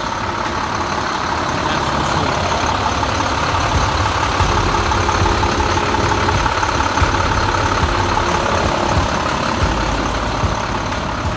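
International CXT pickup's DT-466 inline-six diesel idling steadily.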